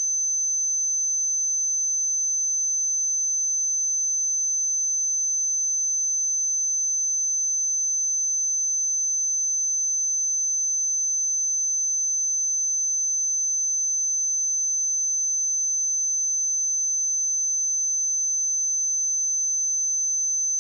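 A 6145 Hz sine-wave test tone: one pure, high-pitched, steady tone held without change.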